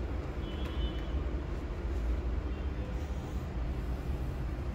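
Steady low rumble of room background noise, with a faint brief high squeak just under a second in.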